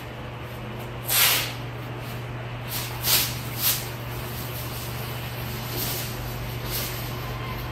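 Clear plastic masking film rustling in several short bursts as it is spread and pressed over a car's front end, over a steady low hum.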